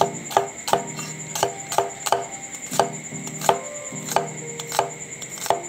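Kitchen knife slicing onion on a wooden chopping board, the blade knocking the board in a steady rhythm of about three cuts a second.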